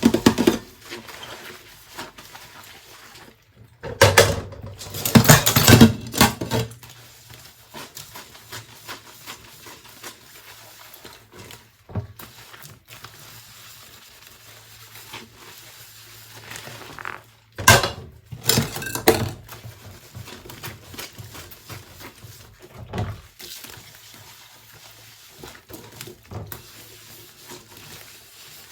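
Dishes and cutlery being washed by hand: scattered clinks and knocks of crockery and utensils, with two louder stretches of clattering about four and eighteen seconds in.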